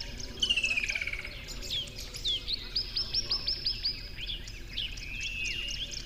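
Several birds calling and singing at once, with many short chirps throughout, a falling trill about half a second in and a quick run of repeated notes around the middle.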